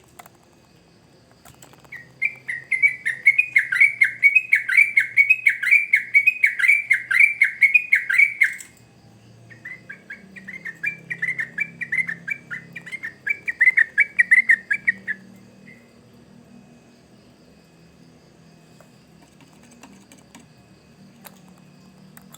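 Yellow-vented bulbul (trucukan) male singing in full voice: two long runs of rapid, repeated chattering notes, about three a second, the first about six seconds long and the second about five, then it falls quiet.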